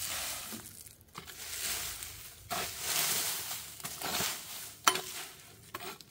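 Long-handled garden tool scraping and dragging dry leaves, sticks and dirt in repeated crunching strokes, with one sharp knock near the end.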